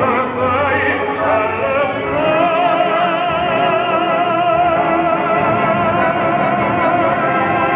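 Operatic singing with orchestral accompaniment; from about two seconds in a voice holds one long note with a wide vibrato.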